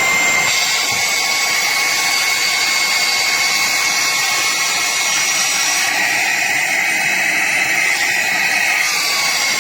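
Cordless handheld vacuum cleaner running steadily: a high motor whine over rushing air, switched on abruptly.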